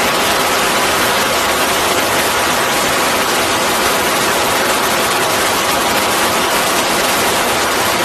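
Rocket engine firing on a test stand: a steady, loud rushing noise of the exhaust jet that holds even with no let-up.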